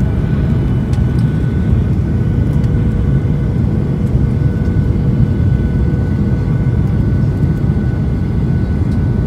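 Jet airliner cabin noise on the approach: a steady, loud low rumble of the engines and rushing air, with a thin, steady whine above it.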